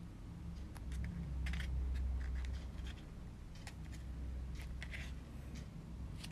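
Stiff glitter card paper handled and pressed between fingers: scattered faint rustles and small clicks over a low hum.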